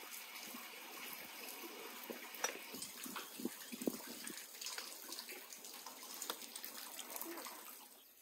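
A steady rush of running water, with scattered light clinks of forks and tea glasses against plates and dishes.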